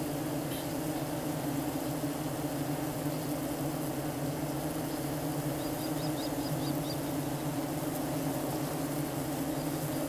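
Honeybees fanning their wings at the entrance of a Bienenkiste hive box, a steady drone: worker bees ventilating the hive to cool it in the heat.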